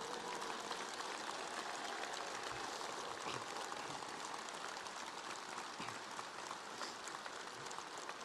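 Applause from a large outdoor crowd, an even, fairly faint patter of many hands that slowly dies away.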